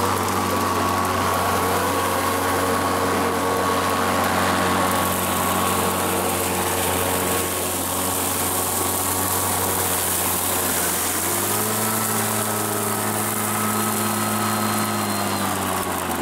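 Greenworks Commercial 82V cordless lawn mower running with a steady whine from its electric motor and spinning blade. About 11 seconds in, the speed steps up and holds for several seconds before easing back: the load-sensing motor is boosting its power as the cutting load comes on.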